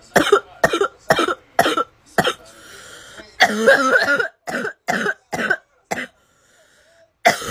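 A girl's barking cough: fits of short, harsh coughs about two a second, broken by a noisy breath in and a longer drawn-out cough, with a fresh fit starting near the end.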